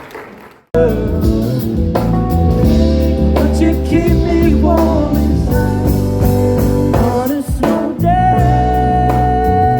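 Applause fading out, then, under a second in, a song with singing, guitar and drums starts abruptly and loud, with a brief break near the end before a long held sung note.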